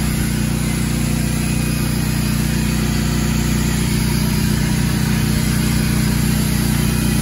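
An engine running steadily: an unchanging low drone with a hiss over it.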